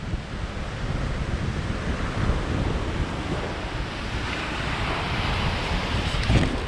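Surf washing on a sandy beach, with wind buffeting the microphone. A wave's hiss swells about four seconds in.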